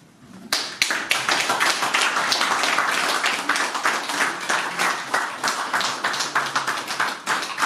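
Audience applauding: many people clapping together, starting sharply about half a second in and thinning out near the end.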